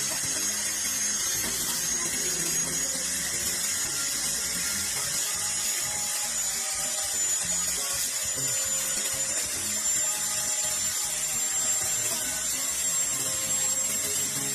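Background music over the steady, high-pitched whine of a small power tool, its pitch creeping slowly upward, over a hiss.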